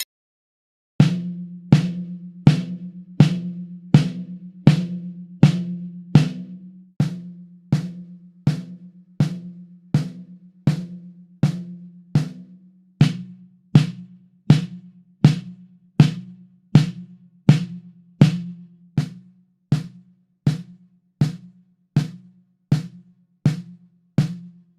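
Snare drum with an Evans UNO G2 head struck in single, evenly spaced strokes, about one every 0.7 seconds, starting about a second in. Each hit rings on with a strong low drum tone.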